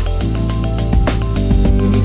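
Electronic background music with a steady beat and held synthesizer notes.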